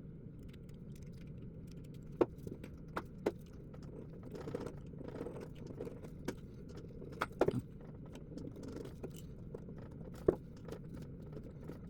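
Flathead screwdriver scraping and clicking against the metal channel of a lead syringe shield, picking out old glue residue: short scrapes and a handful of sharp metallic clicks, the loudest about two seconds in and again near the end, over a steady low hum.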